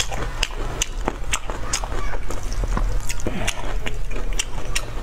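Close-miked eating of saucy noodles: wet chewing and slurping, with sharp mouth clicks and smacks several times a second.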